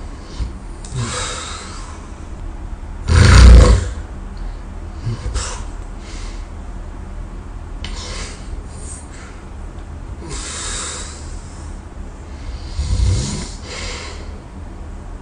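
A person snoring in their sleep: one loud, deep snore about three seconds in and a second, weaker one near the end, with fainter breaths in between.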